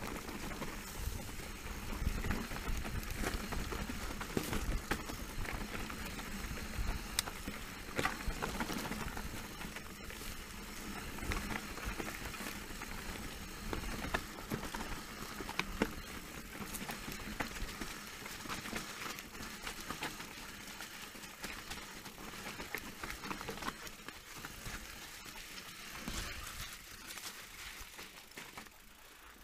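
Specialized Turbo Levo electric mountain bike rolling over a rough dirt and stone trail: tyres crunching on the ground and the bike rattling with frequent sharp knocks and clicks. The noise drops off near the end.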